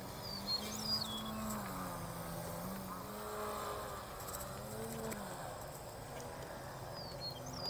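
Radio-controlled aerobatic model plane's motor and propeller running faintly in flight, its pitch swelling up and down several times as it manoeuvres.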